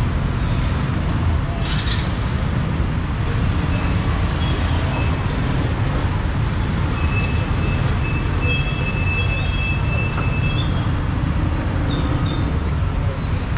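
Steady low rumble of street traffic, with a thin high squeal held for a few seconds midway.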